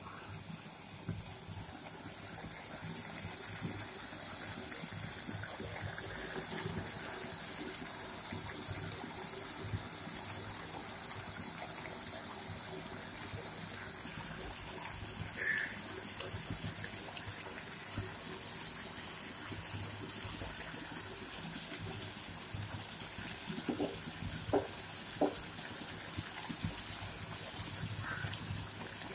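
Chopped tomatoes simmering and sizzling in oil in a kadai on the stove, a steady hiss, with a few light knocks a little before the end.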